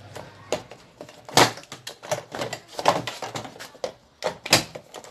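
Irregular plastic clicks and knocks as the timer knob of a plastic washing machine is twisted and pulled off its shaft, with a few louder knocks about a second and a half apart.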